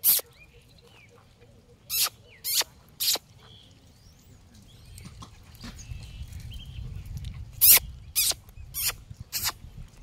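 Sharp, loud claps: one at the start, three in quick succession about two seconds in, and four more near the end, each about half a second apart.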